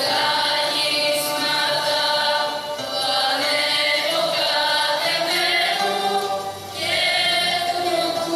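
Live music with a group of voices singing together in held, flowing lines.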